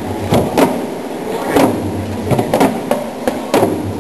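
Rope-laced drum struck in loose, uneven beats, about two a second, over a steady low hum.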